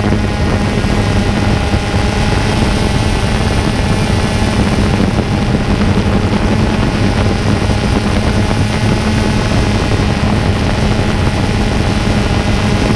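Multirotor drone's motors and propellers buzzing steadily at a constant pitch, heard close up through the drone's own onboard camera microphone.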